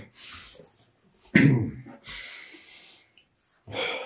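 A man's harsh cough about a second and a half in, followed by a long, heavy breath out and another short breath near the end.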